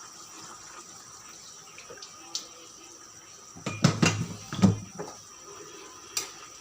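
Water poured from a cup into a cooking pan, with a few loud clunks of the cup and pot about four seconds in.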